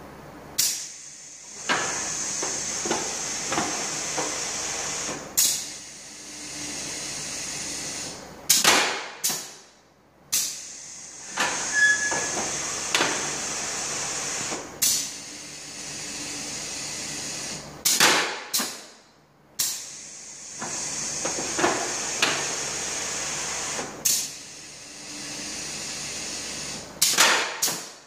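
Pneumatic cylinders on a chocolate molding line being cycled by a hand-operated air valve. Compressed air hisses steadily for several seconds at a time, then sharp clacks and loud gusts of exhausting air follow as the cylinders stroke. The cycle repeats three times.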